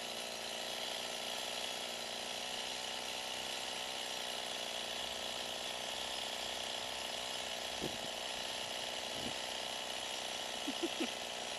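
Gas chainsaw running steadily as it cuts through a tree trunk, making the felling cut behind the notch.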